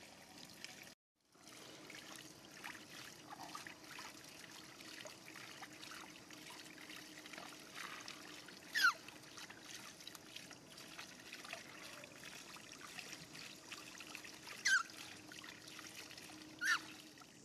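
Water trickling and spilling from an overflowing metal basin fed by a hose, sloshing as a baby monkey is dipped and rinsed in it. Three short high squeaks falling in pitch stand out, one near the middle and two near the end, and the sound cuts out briefly about a second in.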